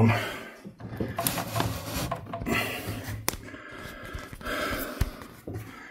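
A PC tower case being turned around on a desk: irregular rubbing and scraping, with a sharp knock a little over three seconds in.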